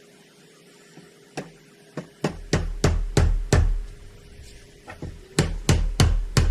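Hammer blows driving a front wheel bearing into the hub of a Yamaha Bruin 350 ATV: a couple of light taps, then a run of heavy strikes at about three a second, a short lull, and another run of strikes near the end.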